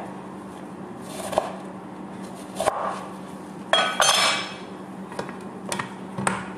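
Kitchen knife slicing lemons on a plastic cutting board, the blade knocking on the board every second or so, with the loudest clatter about four seconds in.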